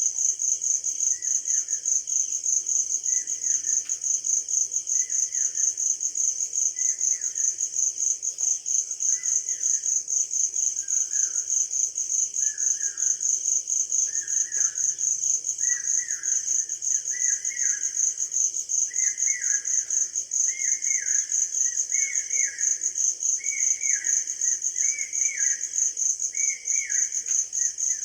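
Crickets chirping steadily in a fast, even pulse, while a bird repeats a short call about once a second that grows louder toward the end.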